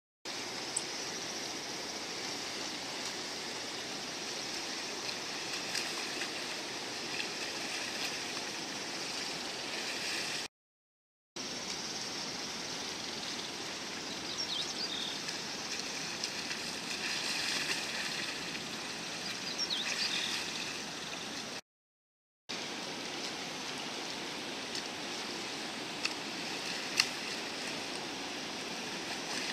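Steady outdoor rushing noise, like flowing water, with a few faint chirps in the middle and a sharp click near the end. The sound cuts out completely twice, for under a second each time.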